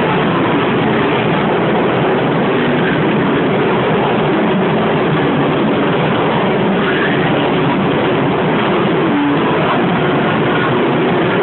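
Waltzer fairground ride in motion: a loud, steady rolling rumble of the ride's cars and machinery, unbroken throughout.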